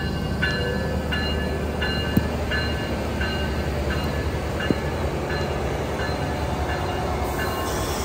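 Amtrak ALC-42 Charger diesel locomotive rolling slowly past with its engine running, under heavy rain. A bell rings about one and a half times a second, fading toward the end. Two sharp clicks stand out, one about two seconds in and one near the middle.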